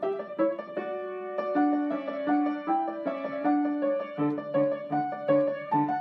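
Outro piano music: a gentle melody of single held notes, joined about four seconds in by a steady, repeating pattern of lower notes.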